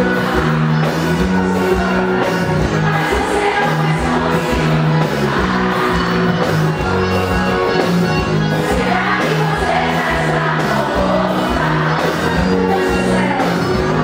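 Live band playing loud amplified music through a stage PA, with singing over a steady drum beat and a moving bass line.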